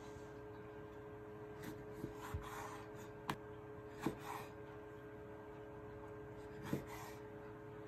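Chef's knife slicing mini tomatoes on a wooden cutting board: a handful of short, scattered knocks as the blade meets the board, the sharpest about four seconds in, over a faint steady hum.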